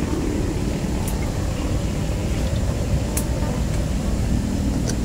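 Steady low rumble of a lit portable gas stove's burner running under the wok, with a few faint light clicks.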